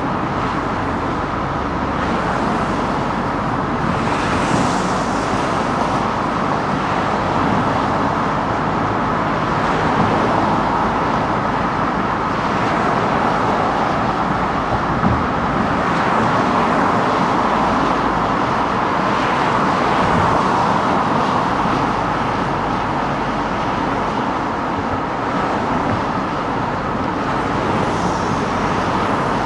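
Steady road and traffic noise of a car driving through city streets.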